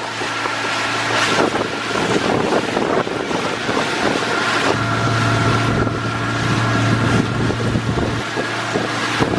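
Engine of a small motor launch running under way across open sea, with water rushing past the hull and wind buffeting the microphone. The engine's low hum grows stronger for a few seconds midway, then eases.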